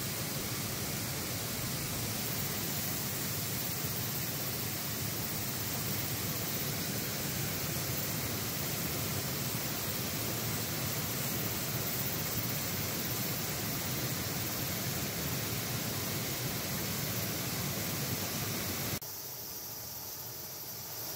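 Steady rushing noise with no distinct events. It drops abruptly to a quieter hiss about two seconds before the end.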